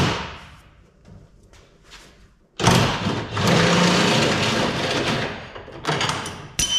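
Hands-on work noise from dropping a car's fuel tank: a knock at the start, then about three seconds of loud scraping and rattling of metal parts beginning nearly three seconds in, and a short ringing metal clink near the end.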